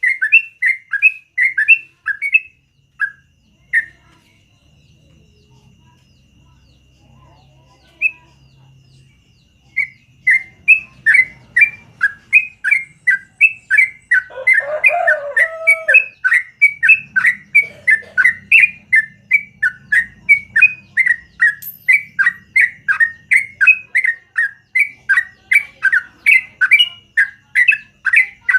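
Yellow-vented bulbul (trucukan) singing a fast string of repeated chirping notes, about four a second. It breaks off for several seconds after the first couple of seconds, then resumes in a long unbroken run. A separate, lower call sounds briefly around the middle.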